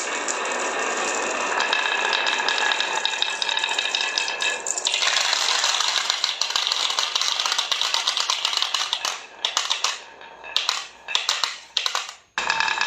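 Marbles rolling and clattering down a marble-run track: a dense, continuous rattle of clicks that changes character about five seconds in, then breaks into separate bursts of clatter with short pauses near the end.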